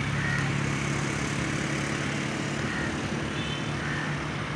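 Steady low engine hum, a motor running at a constant speed.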